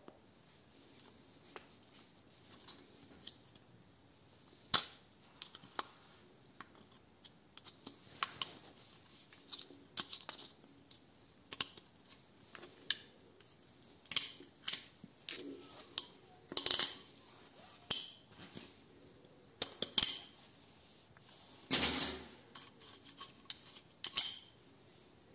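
A small screwdriver scraping and clicking against the metal housing of a pneumatic drill while prying out a metal ring: scattered clicks and short scrapes, sparse at first, then more frequent and louder clinks in the second half.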